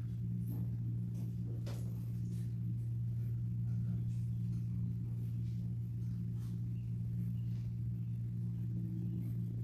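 Steady low hum, unchanging throughout, with a few faint scattered clicks and light knocks over it.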